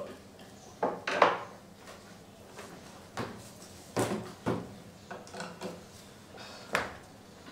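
A series of short wooden knocks and bumps from wooden chairs and a table as two people get up from their seats and move about, the loudest about a second in.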